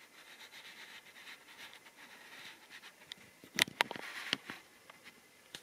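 Model railway diesel locomotive running along the track: a faint, steady whirr of its motor and wheels, then a quick run of sharp clicks about three and a half seconds in.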